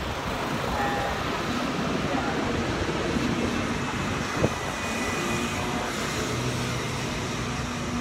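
City street ambience: steady traffic noise, with a single sharp knock about four and a half seconds in.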